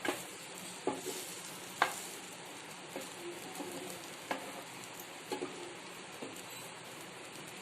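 Bread omelette frying in ghee in a pan: a steady sizzle, with short taps and scrapes of a utensil against the pan about once a second.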